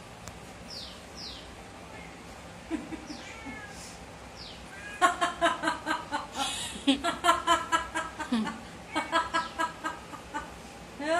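Rapid runs of short, pitched chirping calls, about six a second, starting about five seconds in after a few thin, falling chirps.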